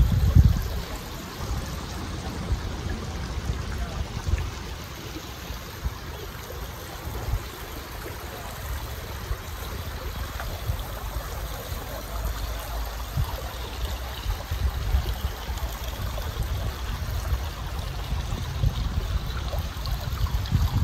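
Steady rushing outdoor noise with an uneven low rumble and a few faint ticks.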